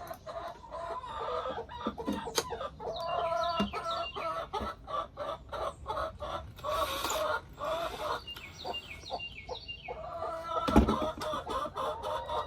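Chickens clucking steadily in the coop, with scattered clicks and knocks of handling and a single loud thump about eleven seconds in.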